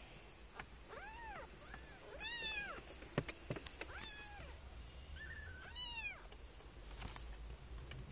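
A 25-day-old kitten mewing repeatedly, about six short high-pitched mews that rise and fall, with a light knock about three seconds in.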